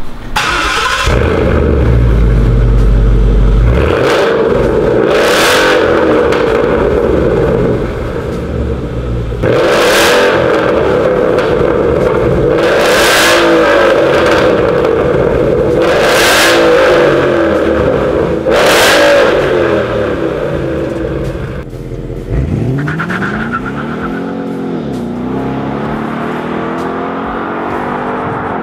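Ford Mustang GT's 5.0-litre V8 revved in short bursts at standstill, first through the stock exhaust, then, after a cut about nine seconds in, through a KS Racing 2.5-inch catback exhaust with four sharp revs. From about 22 seconds the car pulls away, its engine note rising and falling as it accelerates.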